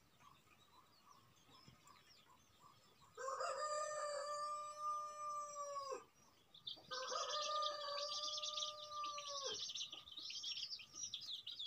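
A rooster crowing twice: two long, drawn-out crows, each about three seconds, the pitch dropping at the end of each, about three seconds in and again near seven seconds. Small birds chirp high and busily alongside.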